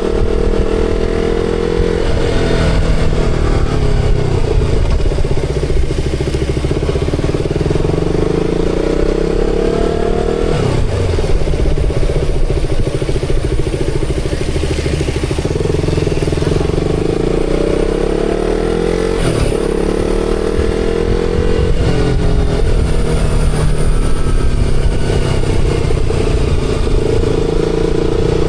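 KTM Duke 200's single-cylinder engine running under way, its pitch rising and falling with throttle and gear changes, with sharp drops about ten seconds in and again near twenty seconds, over steady road and wind noise.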